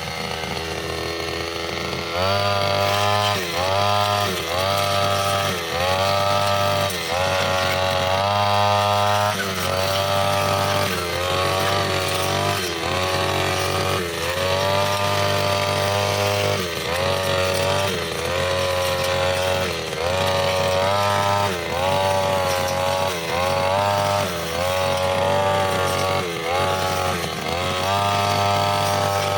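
Brushcutter engine driving a metal cutting blade through grass and small woody growth, its speed rising and dropping back over and over, about once every second or two.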